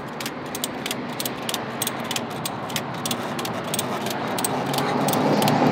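Ratcheting tie-down strap being cranked tight on a motorcycle carrier, a run of sharp ratchet clicks a few a second. The noise of a passing vehicle swells and becomes the loudest sound near the end.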